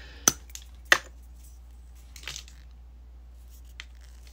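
A plastic lipstick tube being uncapped: two sharp clicks a little over half a second apart as the cap comes off, then faint handling noises and a small tick near the end.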